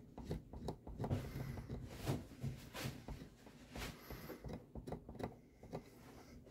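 Irregular light clicks and knocks of hands handling tools and guitar parts, a dozen or more small taps spread unevenly with no steady rhythm.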